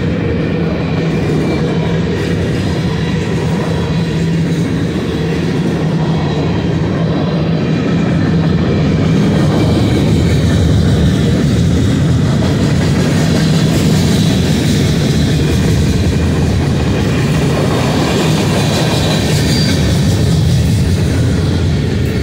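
Freight cars of a BNSF manifest train rolling past: a loud, steady rumble and clatter of steel wheels on rail, with faint high wheel squeal now and then.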